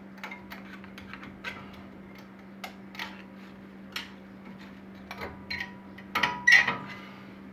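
Light metallic clicks and clinks of brake parts being handled as the front caliper and pads are taken apart, with a louder clatter about six seconds in, over a steady low hum.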